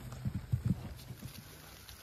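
Horse hooves striking grassy ground, with several heavy beats in the first second, then quieter.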